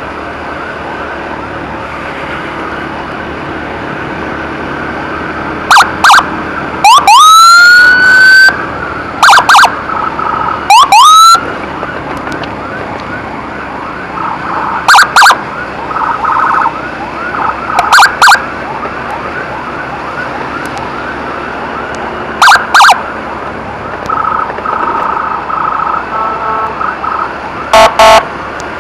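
Emergency sirens on an ambulance escort run. Short loud siren blasts, some in pairs, are repeated every few seconds, with two rising whoops in the first half, over steady riding noise.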